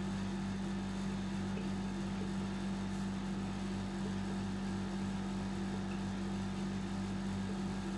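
Steady low electrical mains hum over faint room hiss.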